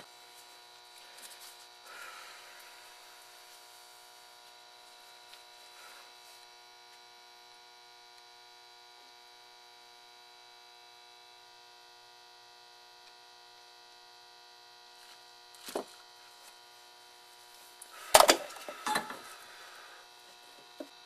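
Steady electrical hum with several fixed tones, including a faint high whine. About three-quarters through comes a single sharp knock, then a couple of seconds later a short, louder clatter of knocks as the circuit board and tools are handled on the bench.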